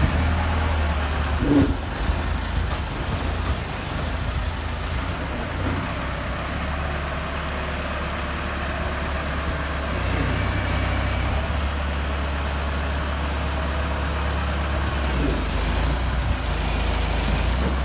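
Diesel engine of a Genie GTH-644 telehandler running steadily while the machine raises and carries a crated load on its forks; the engine note steps up a little about ten seconds in.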